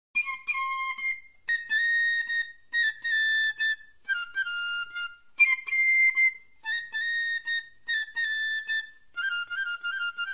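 Instrumental music: a solo high-pitched melody, flute-like, played as short phrases of a few notes with brief pauses between them and a quick trill near the end, with no accompaniment beneath it.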